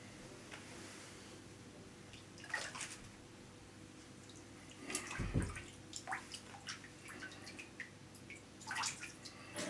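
Water sloshing and dripping in a bathtub as a stretched canvas is laid face down on paint floating on the water and then lifted out, with scattered small splashes and drips and a dull thump about halfway through.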